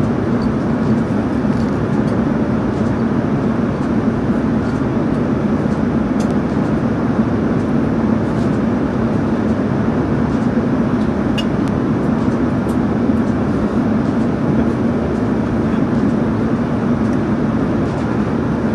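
Steady, even rushing noise inside a jet airliner's cabin in flight, with a few faint light clicks now and then.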